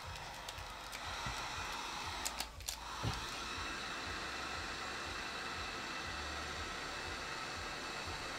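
Handheld electric heat gun blowing steadily, its hot air held over wood-burning gel paste on a wooden board to scorch the wood. A few faint clicks come about two to three seconds in.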